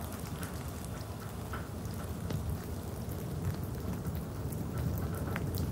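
Steady rain, with many small sharp drop ticks over a low rumble.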